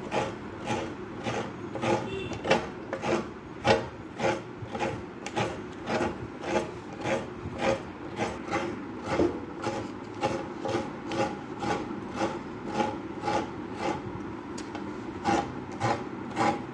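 Fresh coconut being grated by hand: a coconut half is scraped against a serrated floor-mounted coconut scraper, with an even rasping stroke about three times a second as the shreds fall onto a steel plate.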